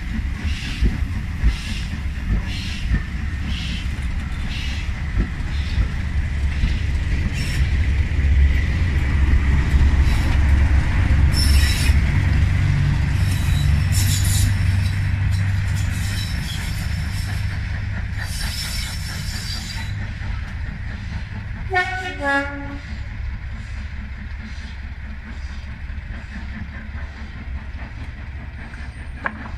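Coach wheels clicking over rail joints as a train passes. Then the English Electric V12 diesel of Class 37 locomotive D6732, at the rear of the train, rumbles past and fades away. A short horn note sounds later on.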